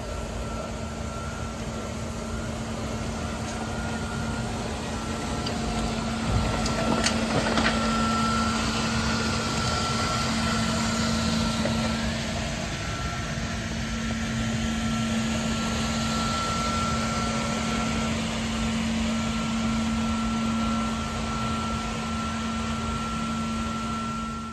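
Kärcher KIRA B 200 autonomous floor scrubber-dryer running: a steady machine hum with a thin whine over it and a few faint clicks.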